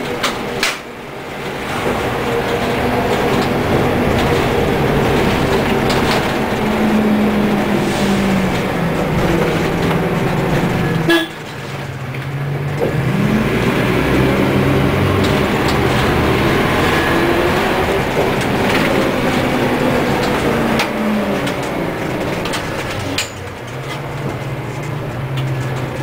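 Leyland Lynx single-deck bus's diesel engine under way, heard from inside the bus. The engine note falls and rises over and over, drops off suddenly about 11 seconds in, then climbs again, and settles to a steadier low note near the end.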